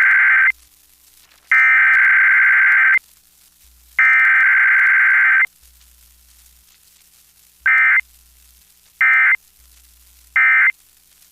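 Emergency Alert System SAME data bursts: harsh, buzzing digital tones in bursts with quiet gaps between. The last of a long burst ends about half a second in, two more long bursts of about a second and a half follow (the header sent three times), then three short bursts about a second and a half apart, the end-of-message code that closes the weekly test.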